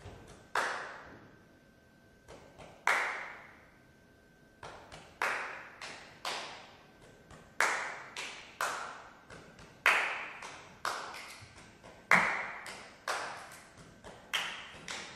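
Sharp hand claps and slaps in an uneven rhythm, about a dozen strokes with loud and soft ones mixed, each ringing on in a big hall's reverberation: live body percussion.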